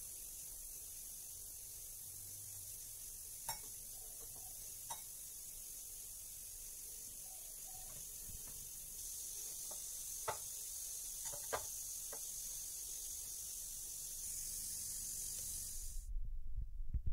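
Steady hiss with a few faint clicks and taps scattered through it. About a second before the end the hiss cuts off and a low throbbing starts.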